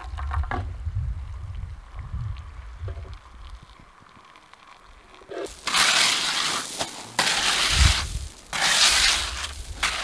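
Pebble gravel scraped and dragged with a long-handled tool, levelling a beach for a camp pitch: three long, loud scraping strokes starting about halfway through. Before them there is only a low rumble.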